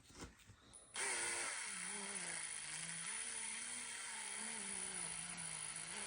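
Power drill spinning a homemade ratchet-strap winder to roll up the strap. It starts about a second in and then runs steadily, its motor hum wavering slightly up and down in pitch.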